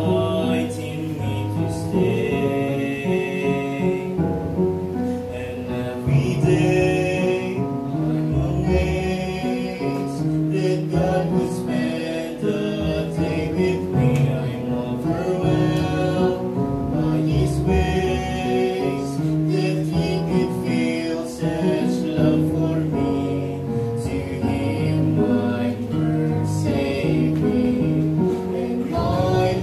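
A young woman and a young man singing a Christian worship song together into microphones, with instrumental accompaniment under the voices.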